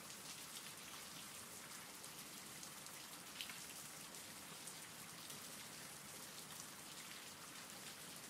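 Faint steady rain: an even hiss with scattered light drop ticks.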